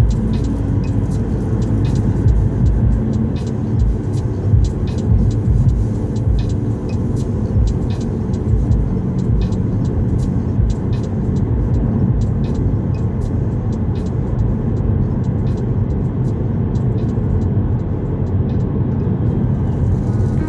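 Steady low road and engine rumble inside a car's cabin, cruising on a motorway. Light ticks and clicks come through the rumble, thinning out in the later part.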